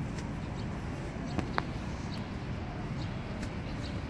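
A puppy eating from a bowl: scattered short clicks and crunches of chewing and of the bowl, with two sharper clicks about a second and a half in, over a steady low rumble.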